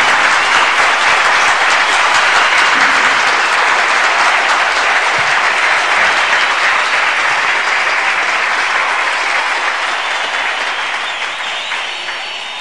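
Audience applauding, a dense steady clapping that slowly fades out near the end.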